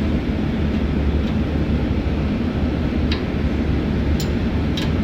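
Steady low drone of a tanker's machinery, with a few light clicks from the fittings being worked on.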